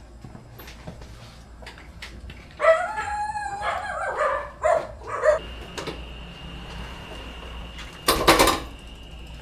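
Animal calls: one long pitched call about three seconds in, then several shorter calls, and a short loud noise near the end, over a steady faint high tone.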